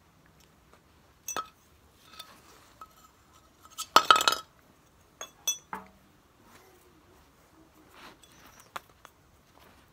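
Scattered light clinks and knocks, like hard metal objects being handled, with a denser, louder cluster of clinks about four seconds in.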